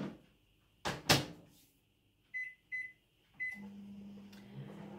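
Microwave oven door knocked shut, then three short keypad beeps as the time is set, and the oven starts running with a steady low hum.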